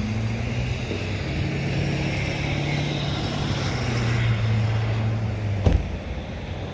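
A motor vehicle's engine running with a steady low hum, with a sharp knock about five and a half seconds in.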